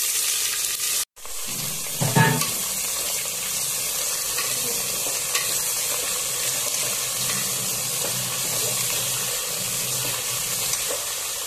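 Sliced onions sizzling as they fry in hot mustard oil in a pressure cooker, with a steel spoon stirring and scraping through them. The sizzle breaks off for an instant about a second in, and a louder knock comes about two seconds in.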